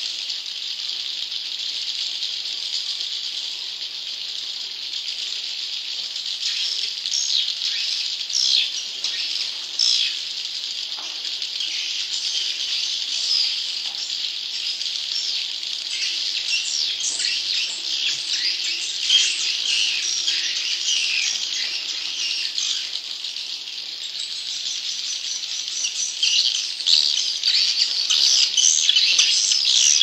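Many swiftlets twittering together: a dense, unbroken chatter of high, rapid chirps, growing busier and louder near the end.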